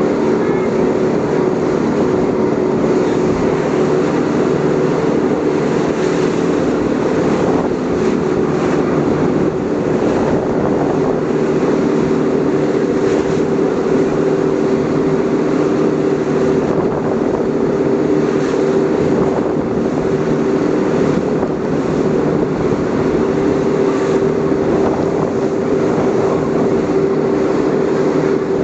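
Speedboat running at high speed: a loud, steady engine drone with a constant hum, over the rush of water and spray along the hull.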